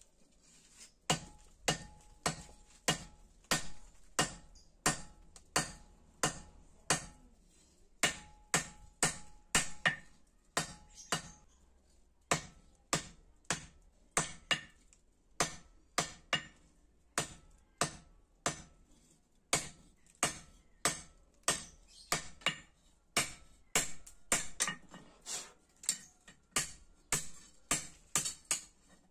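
Hand hammer striking a red-hot celurit blade on a steel anvil, hand-forging it at about two blows a second. Each blow is a sharp metallic clank with a short ring, and the hammering pauses briefly partway through.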